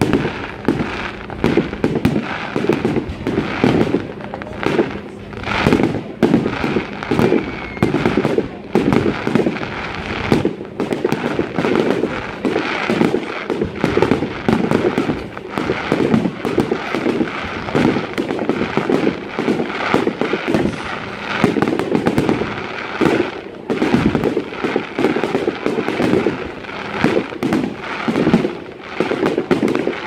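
Fireworks display: aerial shells bursting, with a dense, nearly unbroken run of rapid crackling pops and louder bangs among them.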